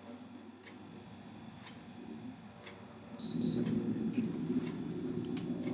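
Synthesized Csound drone fading in through Max/MSP, very faint at first and swelling from about three seconds in, with a few brief high tones over it.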